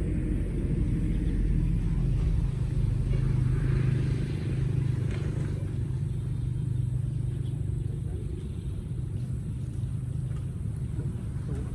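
Engine running steadily with a low hum, easing slightly in loudness after about four seconds.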